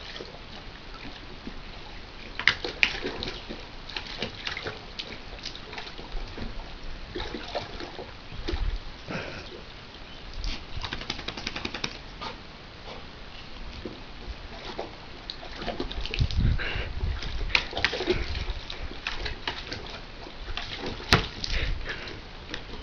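A dog splashing and biting at water in a bucket: irregular splashes and sloshing, with a few sharp knocks.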